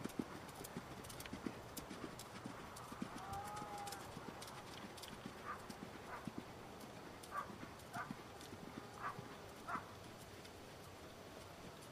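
Hoofbeats of a ridden horse cantering on soft dirt arena footing: a continuous run of soft, dull beats. A few short, sharper sounds stand out in the second half.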